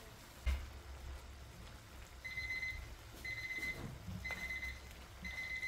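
Digital kitchen timer alarm going off about two seconds in: high electronic beeps in short trilling bursts, about one a second, signalling that the set cooking time is up. A single thump comes about half a second in.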